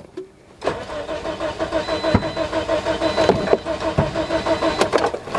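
2009 Toyota Matrix's 1.8-litre four-cylinder engine cranking on the starter with an even, rhythmic chug for about four seconds, then stopping without the engine catching: a crank-no-start condition.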